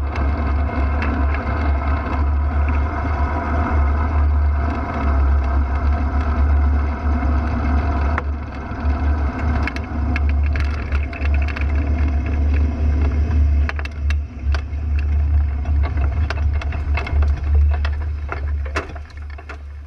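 Ultralight aircraft's engine running steadily, heard from the open cockpit, with scattered sharp clicks in the second half; it quietens over the last couple of seconds.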